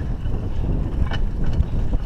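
Mountain bike riding over a stony dirt track: tyres rumbling over loose rock, with wind buffeting the microphone and a sharp rattle of the bike about a second in as it jolts over the stones.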